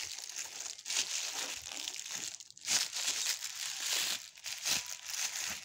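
Plastic wrap crinkling and rustling in several surges as it is peeled off an air rifle's compressed-air cylinder.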